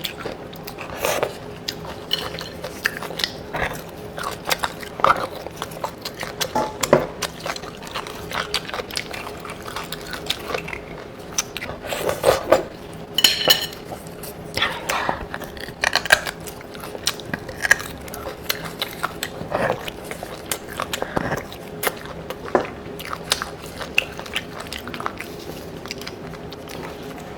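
Close-miked eating of boiled beef bone marrow: irregular biting and chewing with many short mouth clicks and smacks, over a faint steady hum.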